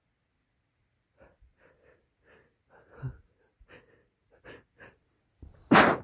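A person's exaggerated sneeze buildup: a run of short, faint, catching breaths, then one loud sneeze near the end.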